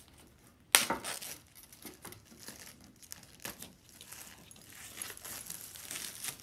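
Clear plastic wrap crinkling as it is peeled and pulled off a packaged board, with one sharp, loud crackle about a second in and irregular crackling after.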